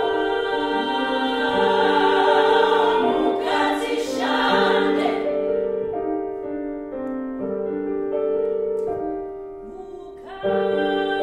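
Choir singing sustained chords in phrases of a couple of seconds each. The sound thins out a little before the end, then the full choir comes back in on a new phrase.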